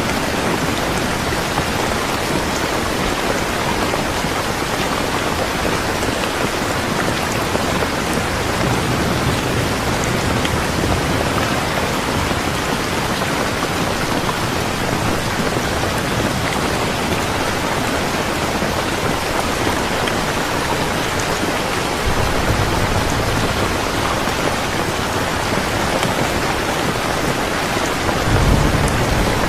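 Steady heavy rain falling in a dense, even hiss. Low rumbles of distant thunder swell under it twice in the last third.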